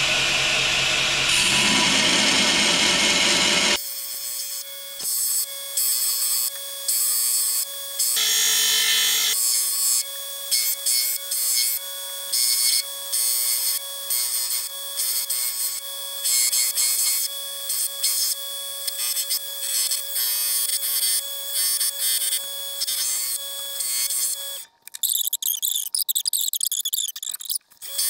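A belt grinder runs loudly for the first few seconds and then stops. After that, a steel knife blank is rubbed by hand in short, regular back-and-forth strokes against abrasive on a flat plate, over a faint steady hum. A brief hiss comes near the end.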